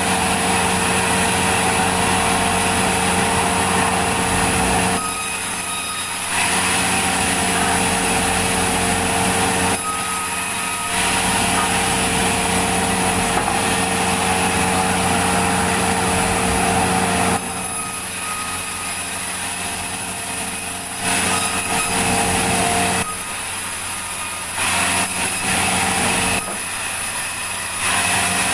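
Sawmill machinery sawing logs: a steady engine-like hum with a high rushing noise over it. The sound drops briefly five times, for one to three seconds each, then comes back up.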